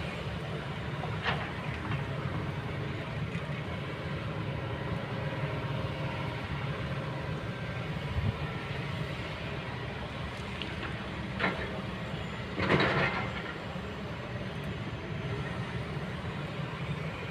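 Kobelco hydraulic excavator's diesel engine running steadily under work, with a few sharp knocks and clanks; the loudest is a short crash about three-quarters of the way through.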